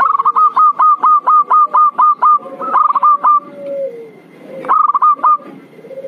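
Zebra dove (perkutut) lure call: a fast run of about a dozen short, clipped cooing notes, then a lower drawn-out coo that falls in pitch, then a second short run of notes about five seconds in.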